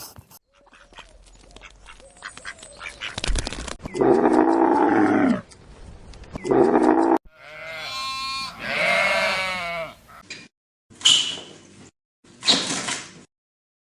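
A run of separate animal calls cut one after another, with abrupt silent gaps between them. There are loud calls about four and six seconds in, a longer call that wavers in pitch after that, and short calls near the end.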